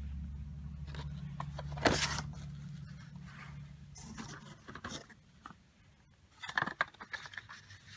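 Small plastic toy stamps being handled, with light scraping and rubbing and one sharp knock about two seconds in. A steady low hum sits underneath and fades out about halfway through.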